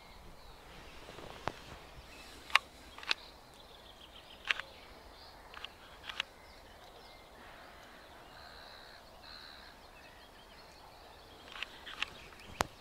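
Quiet outdoor ambience with faint birdsong and a scattering of short, sharp clicks.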